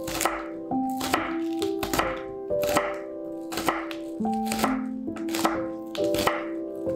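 Chef's knife chopping green onions on a bamboo cutting board, with crisp chops at an even pace of about two a second as the blade cuts through the stalks and hits the wood.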